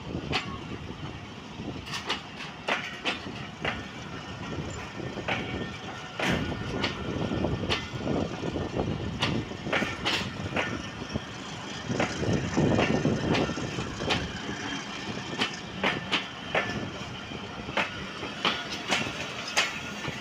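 Green Pakistan Railways passenger coaches rolling past, their wheels clacking irregularly over the rail joints above a continuous low rumble.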